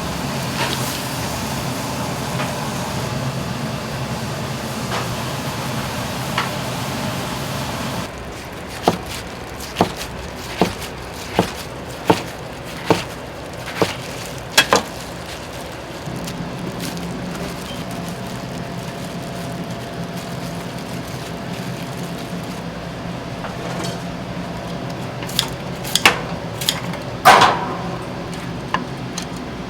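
Street-food stall kitchen sounds: a steady frying sizzle, then a run of sharp knocks about one every second, then steady background noise with utensils clattering near the end.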